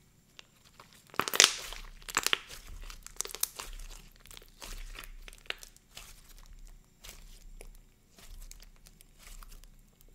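Soft, thick mochi-style slime being stretched, folded and squeezed by hand, giving a run of small crackles and clicks. The loudest comes about a second and a half in.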